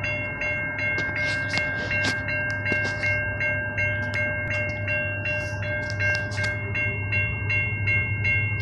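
Railroad grade-crossing bell ringing in a fast, even rhythm of about three strikes a second, over the low rumble of an approaching train.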